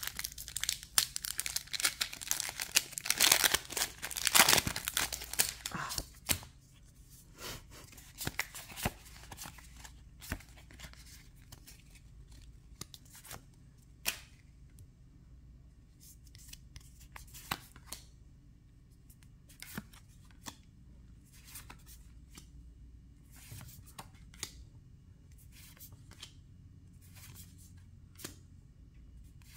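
Foil wrapper of a Pokémon booster pack being torn open and crinkled for about the first six seconds, then quieter scattered clicks and rustles of trading cards being handled and shuffled one at a time.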